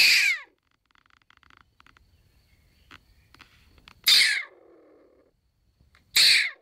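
Stone marten calling: three short, high screams, one at the start, one about four seconds in and one about six seconds in, each about half a second long and falling in pitch. Faint ticks come between them.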